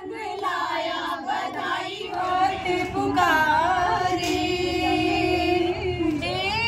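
Women's voices singing a Hindu devotional song together, with long held notes and a wavering note near the end.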